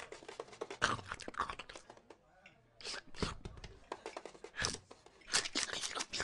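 Crunchy chewing and biting, irregular clusters of crisp crunches with short pauses between them.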